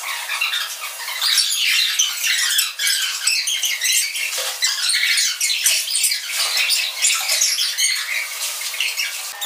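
Water splashing and shrill shrieks from people in an indoor swimming pool, a busy jumble of short sounds with no steady tone.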